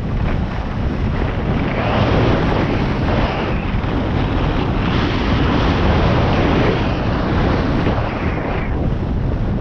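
Strong wind buffeting the microphone of a camera on a skier going fast downhill, a steady rush that swells and eases, with skis running over packed, tracked snow.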